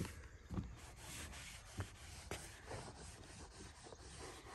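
A rag rubbed back and forth over rubber (EPDM) roofing membrane, a faint scratchy scrubbing as the seam area is wiped down to take seam tape, with a few light knocks.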